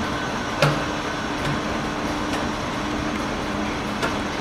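Steady station-platform background noise, an even hiss and rumble with a faint steady low hum, broken by two short sharp clicks.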